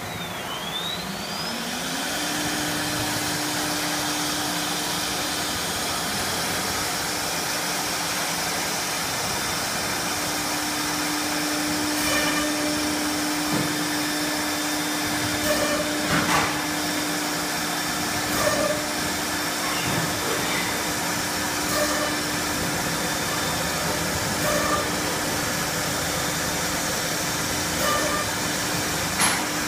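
Spindle motor of a four-spindle 1325 wood CNC router spinning up, its whine rising in pitch over about two seconds and then running at a steady pitch. From about halfway on, short irregular knocks and bursts of noise come as the bit works the wooden panel.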